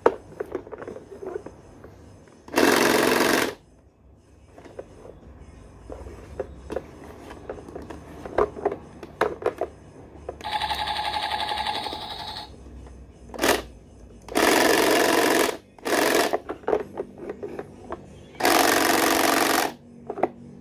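Electronic sound effects from a toy armoured vehicle's built-in speaker, set off by pressing the buttons on its turret: three bursts of rattling noise of about a second each, plus a short one, and a two-second tonal effect about ten seconds in. Small plastic clicks and knocks from the toy being handled come between them.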